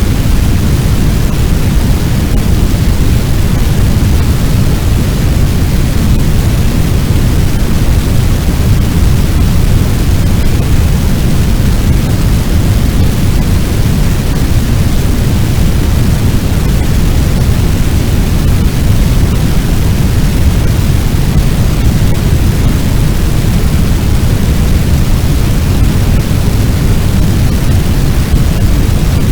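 Sound effect of a large building fire: a loud, steady, deep rumbling noise like a blaze with rushing wind, heaviest in the low end and unchanging throughout.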